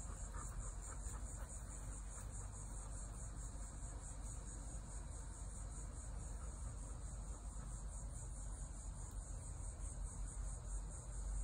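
A steady, high-pitched insect chorus: a rapid, evenly pulsing trill that never lets up, over a low rumble.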